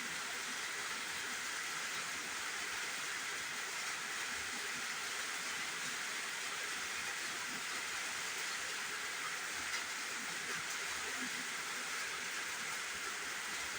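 Steady hiss of a recording's background noise, even and unchanging, with no distinct sound events.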